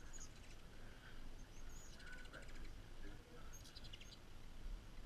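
Ruby-throated hummingbirds giving high, thin squeaks and fast chittering trains, with one burst of chatter about two seconds in and another near four seconds.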